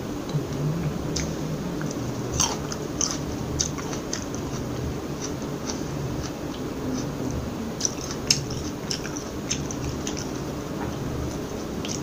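Close-miked chewing of a crisp seedless green grape: sharp crunches about two and a half to three and a half seconds in and again around eight seconds, with softer chewing clicks between.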